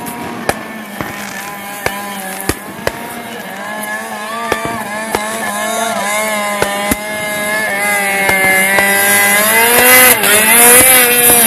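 Snowmobile engine running hard as the sled skims across open water, growing louder and rising in pitch as it draws near. Sharp firework cracks go off now and then.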